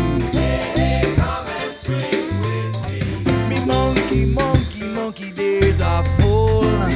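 Upbeat Latin-style backing music with bass, drums and a melodic line.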